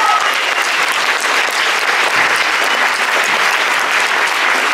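Audience applauding steadily, a dense even clapping with no break.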